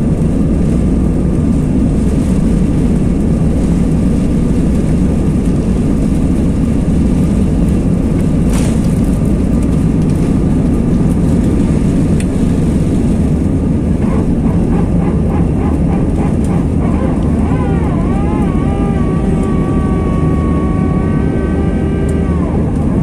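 Airbus A320 jet engines at takeoff power, heard from inside the cabin: a loud, steady noise as the airliner rolls down the runway and climbs away. A single click about a third of the way in. In the last several seconds a separate pitched tone comes in, wavers, then holds steady and stops just before the end.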